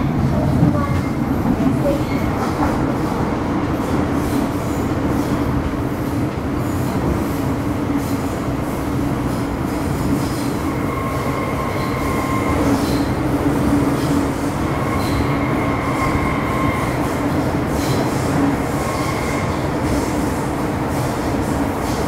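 Interior running sound of an MTR Metro Cammell M-Train with GEC GTO chopper traction: a steady rumble of the train under way. Thin high-pitched tones come and go several times over it.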